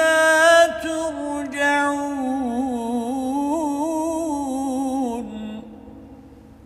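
A man reciting the Quran in the melodic Arabic style, drawing out the last word of a verse in one long, ornamented held note. It fades out about five seconds in and dies away.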